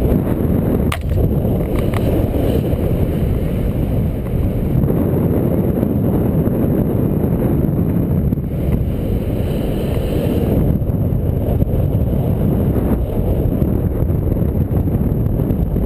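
Wind buffeting a GoPro's microphone during a paraglider flight in a strong breeze: a steady, loud, low rumble of wind noise.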